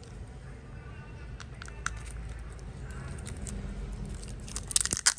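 Handling a plastic fingertip pulse oximeter while fitting its batteries: scattered small clicks and taps, then a burst of loud crackling near the end as its clear plastic wrapping is crinkled.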